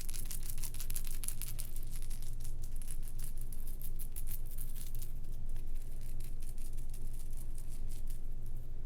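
Light, rapid crinkling and rattling of food packaging being handled, thinning out near the end, over a steady low hum.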